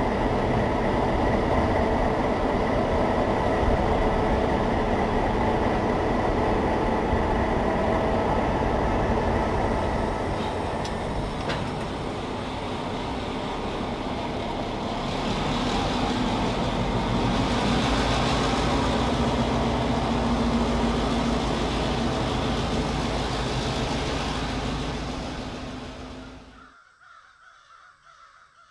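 Recording of real diesel locomotives running, a steady engine rumble with several held tones. It eases off around ten seconds in, builds again with more hiss, then drops away sharply near the end.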